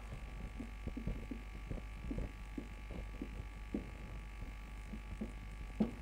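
Faint, irregular scratches and taps of a marker writing on a whiteboard, over a steady low hum.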